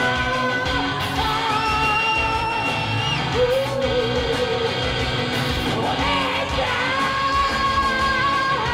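Rock music with a voice singing and yelling over it.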